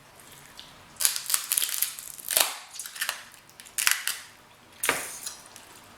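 King crab leg shells cracking and snapping as they are broken open by hand: a series of sharp, crackling breaks, about five clusters spread over several seconds.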